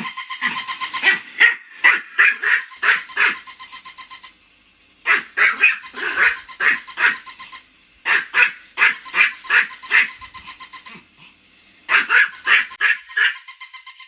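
A dog yapping rapidly, several high yaps a second, in four bouts with short pauses between them.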